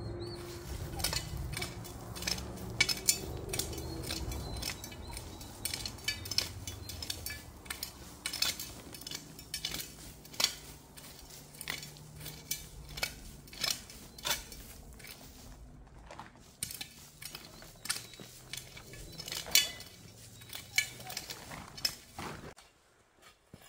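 Metal shovel scraping and striking stony ground, with irregular sharp clinks. The sound cuts off abruptly near the end.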